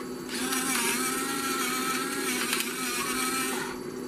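Battery-powered electric pepper mill grinding pepper: a steady motor whir over the crunch of peppercorns, starting just after the beginning and stopping suddenly near the end, about three and a half seconds in all.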